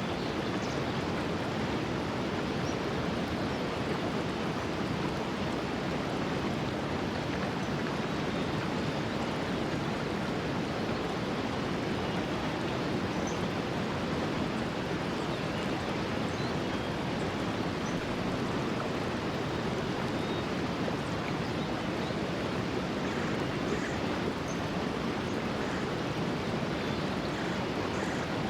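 Clear mountain stream flowing, a steady rush of water.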